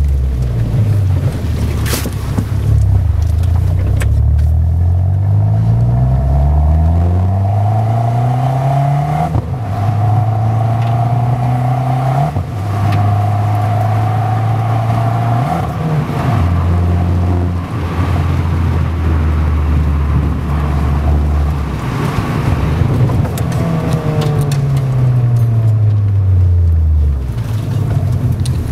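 Fiat 500 Abarth's 1.4 turbo four-cylinder through a Skytune aftermarket exhaust, heard from inside the cabin. It accelerates through several gears, its pitch climbing and dropping back at each shift. It then holds steady revs for a stretch, and its pitch falls away as the car slows near the end.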